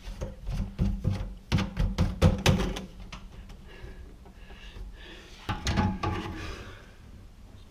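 Black plastic sink drain pipe knocking and clacking as it is worked loose by hand from its joint at the garbage disposal, a quick run of sharp knocks in the first three seconds. A few more knocks follow about five and a half seconds in.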